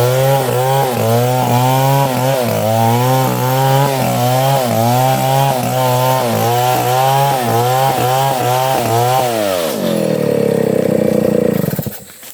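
Octagon 070 two-stroke chainsaw cutting sengon wood, its engine pitch dipping and recovering again and again as the chain bites. About nine seconds in, the pitch falls away to a lower, steadier run, and the saw stops near the end. The chain is dull, by the operator's account.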